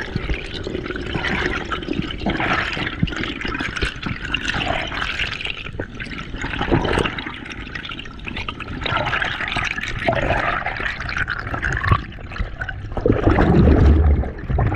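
Water rushing and gurgling close around a freediver in the sea, coming in irregular surges, with the loudest and deepest surge near the end.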